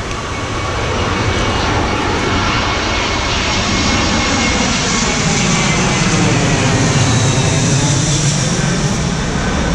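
Airplane passing overhead: a rushing engine drone that grows louder through the middle and later part, with a slowly sweeping, phasing character.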